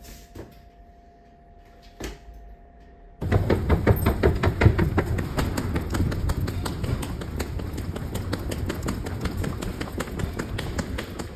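Footsteps clicking quickly and evenly on a hard stone-tiled floor while walking, starting suddenly about three seconds in, over low rumbling from the hand-held camera moving.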